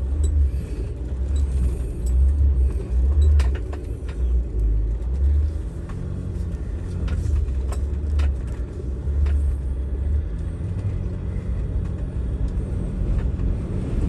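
Jeep Gladiator Rubicon's diesel engine running as the truck crawls over rocky off-road terrain, with a few sharp knocks from rock under the tyres and suspension. Strong wind rumbles on the microphone throughout.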